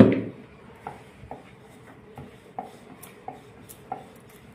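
A single thump at the very start, then dough being rolled out with a rolling pin on a round wooden rolling board: light knocks about twice a second as pin and board tap with each stroke.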